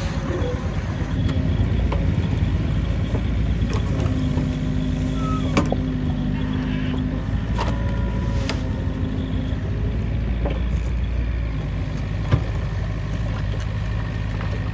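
Mini excavator's diesel engine running steadily while its hydraulics work the boom and grab bucket, with several sharp metal clanks, the loudest about twelve seconds in.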